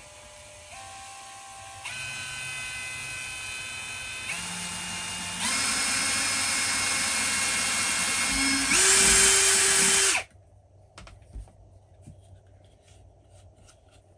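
Ryobi cordless drill boring a small pilot hole into a wooden rifle stock: the motor whine climbs in pitch and loudness in several steps as the speed rises, then stops abruptly about ten seconds in. A few light handling knocks follow.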